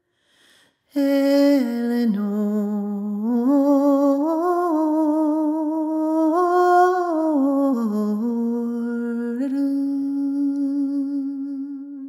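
A solo unaccompanied voice sings the closing phrase of a slow sean-nós air. After a quick breath, the melody steps down, climbs through small ornamented turns, dips, and settles on a long held final note.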